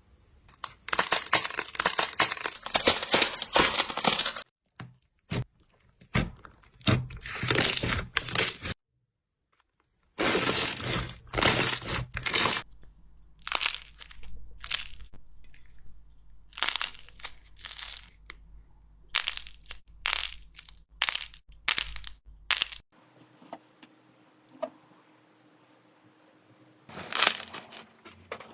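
Slime being squeezed and pressed by hand, giving dense runs of crackling and crunching, then many separate short crackles and snaps. A brief gap of near silence falls about nine seconds in.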